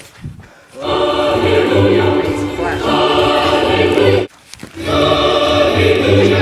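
A choir singing long held chords, starting about a second in, breaking off briefly about four seconds in and then starting again.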